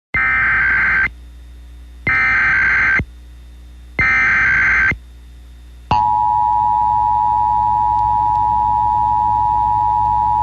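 Emergency Alert System broadcast tones: three one-second bursts of the SAME digital data header, about a second apart, then about six seconds in the steady two-tone EAS attention signal (853 and 960 Hz) starts and holds.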